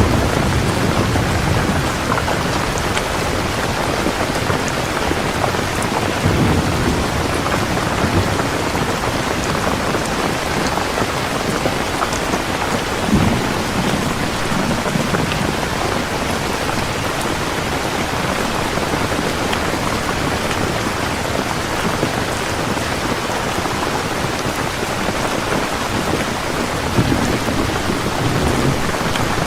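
Steady, dense rainfall, with low thunder rumbles swelling now and then, at the start, a few times mid-way and near the end.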